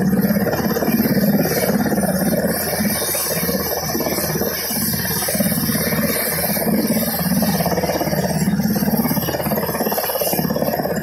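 UH-60 Black Hawk helicopter running on the ground with its main rotor turning: a loud, steady, rapid rotor chop over the engine noise, swelling and easing slightly every second or so.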